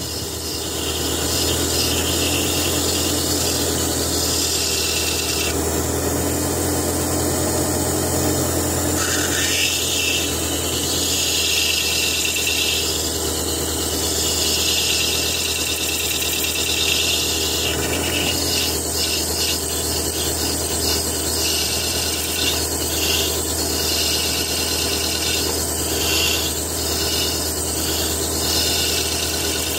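Sunstone held in a faceting handpiece scraping against a spinning ripple lap, over the faceting machine's steady low motor hum. The scraping rises and falls as the stone is pressed and lifted, and turns choppier and more on-and-off in the second half.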